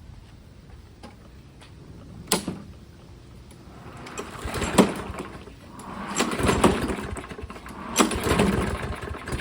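Small lawn mower engine being pull-started a few times, its recoil starter cranking it over in surges with sharp knocks. It has not yet caught. Its air filter is partly taped over to richen the air-fuel mixture of this hard-starting engine.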